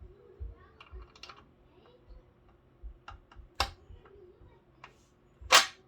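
Small metal parts being handled while a bolt is fitted on the front fork: a string of light clicks and taps, with a louder knock about three and a half seconds in and the loudest knock near the end.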